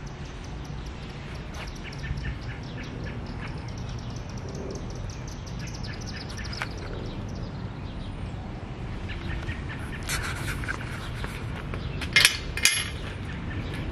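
A few sharp metallic clacks about twelve seconds in as the latch of a chain-link gate is worked, over a steady faint outdoor background with light ticking.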